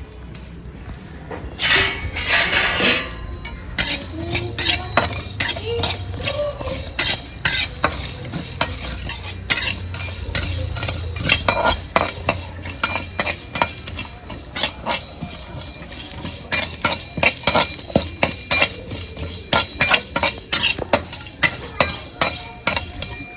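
A metal spoon stirring and scraping in a cooking pot, with many quick clicks against the pan. A steady sizzle starts about four seconds in and runs beneath the stirring.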